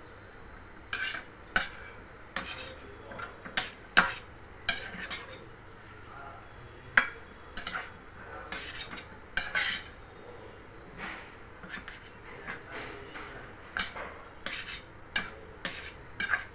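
Metal spatula clinking and scraping against a stainless steel pan as a mashed-potato filling is stirred and pressed. Irregular sharp clinks and short scrapes, one to three a second.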